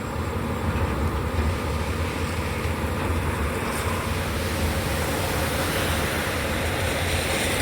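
Steady low engine rumble of vehicles at a car-carrier truck, as a car is driven off the transporter, with a haze of road noise.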